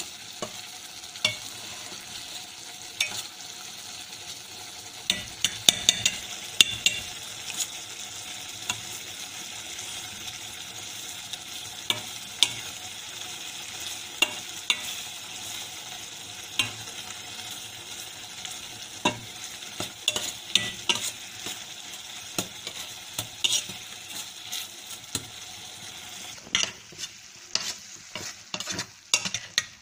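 Metal spoon stirring and scraping curdled milk solids in a stainless steel pot over heat, with a steady sizzle and irregular sharp clinks of the spoon against the pot as the milk is cooked down into kova.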